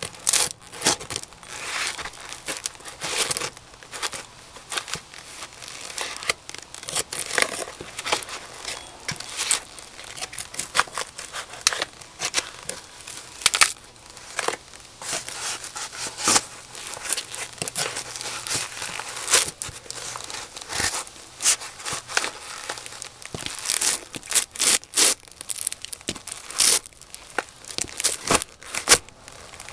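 Cardboard box being stamped on and crushed under German Bundeswehr Knobelbecher leather jackboots: irregular sharp crunches and crackles of the flattening cardboard, many in quick succession.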